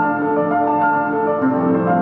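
Background music: a slow melody of held, pitched notes over a steady accompaniment.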